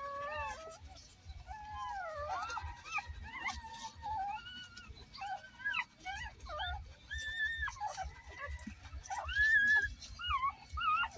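Newborn puppies squeaking and whimpering while nursing, a rapid string of short, high calls that rise and fall, with a low rumble underneath.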